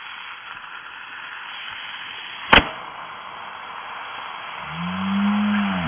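Lithium polymer battery venting smoke inside a fireproof bag with a steady hiss, one sharp pop about two and a half seconds in as a cell bursts. Near the end a low drawn-out call rises and falls.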